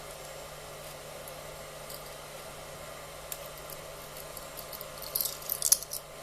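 Light clicks and a short clatter of hard plastic and a metal spatula being handled: one click about a third of the way in, then a cluster of sharp clicks near the end. A steady low hum runs underneath.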